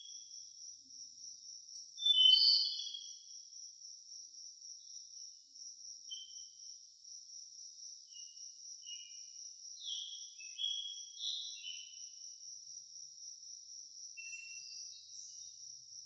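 Insects trilling in one steady, high-pitched, rapidly pulsing drone, with short bird chirps scattered over it; the loudest chirps come about two seconds in and again around ten to eleven seconds.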